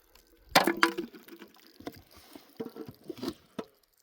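Aluminium beer cans being handled and knocking against each other and their cardboard case. A cluster of knocks comes about half a second in, followed by lighter taps and clicks.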